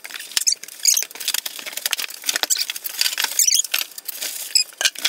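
Cardboard box and foam packing rustling, scraping and crinkling in quick irregular clicks as a kerosene heater is pulled out of its shipping carton.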